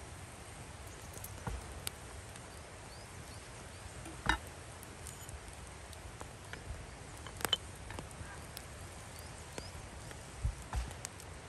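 Ceramic lids set one by one onto earthenware dizi crocks over a wood fire: a few separate clinks and knocks, the loudest about four seconds in, over faint scattered ticks.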